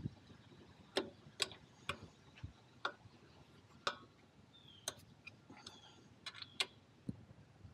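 A dozen or so quiet, sharp metal clicks and ticks at uneven intervals, from a hand tool being turned and reset on the bolts of a motorcycle foot-control bracket as it is tightened.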